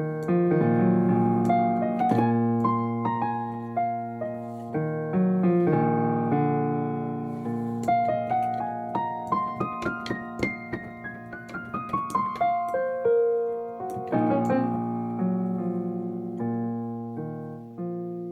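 Solo piano playing chords and melody, with a quick climbing run of notes in the middle; the notes ring out and fade near the end.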